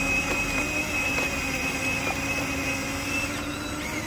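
Small electric motor of a radio-controlled model dump truck whining at a steady pitch, then cutting off a little over three seconds in.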